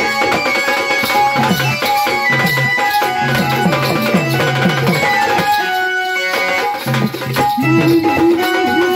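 Instrumental passage of a Marathi gavlan folk song: a hand drum plays repeated strokes with low, bending tones under a melody instrument. The drumming breaks off briefly around the middle and comes back with a long held note above it.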